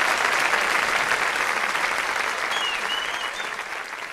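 Audience applauding at the end of a band performance, the clapping steadily fading out.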